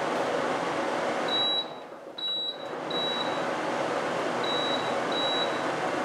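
Frigidaire FFAD2233W1 dehumidifier running with a steady fan hum, and five short high beeps from its control panel as buttons are pressed. The fan noise drops away for about a second, a second and a half in, then comes back.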